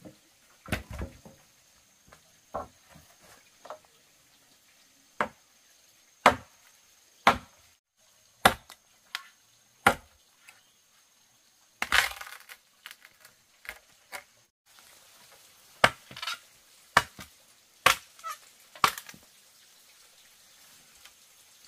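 A series of sharp knocks or strikes, roughly one a second with uneven spacing and loudness, stopping near the end.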